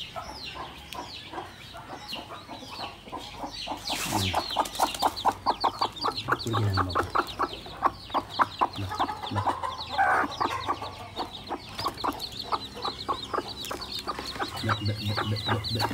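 Newly hatched chicks peeping continuously in short, high, falling notes, while the broody hen on the nest clucks in quick, even pulses from about four seconds in. A sharp click comes near four seconds.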